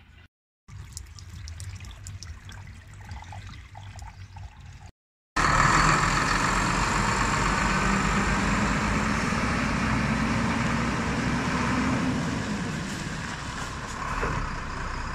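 Iveco concrete mixer truck's six-cylinder diesel engine running: a quieter rumble with light clicks at first, then after a brief cut about five seconds in, loud and steady with a rushing noise over it as the truck moves off.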